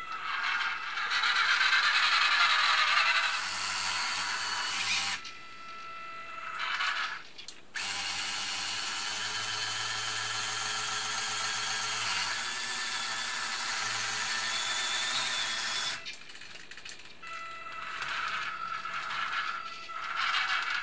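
Small electric motors and gears of a Robbe Linde H50 RC model forklift whirring in long stretches with a steady whine as it lifts and carries a load, stopping briefly between moves.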